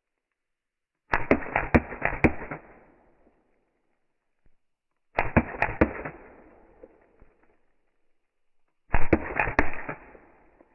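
Action Army AAP01 gas blowback airsoft pistol firing three short full-auto bursts, about a second in, about five seconds in and near nine seconds in. Each burst is a quick run of cracks as BBs strike and crack an LCD screen.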